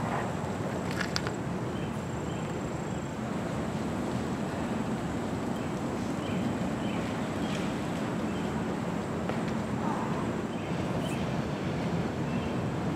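Steady outdoor background noise, a low even rumble with no clear tone, with a couple of faint sharp clicks.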